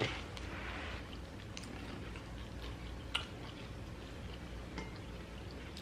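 Quiet chewing of pepperoni pizza, with a few faint, sharp mouth clicks over a low, steady room hum.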